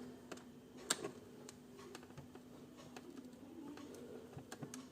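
Faint, scattered clicks and ticks of a small screwdriver turning a tight screw in an old laptop's casing, with one sharper click about a second in, over a faint steady hum.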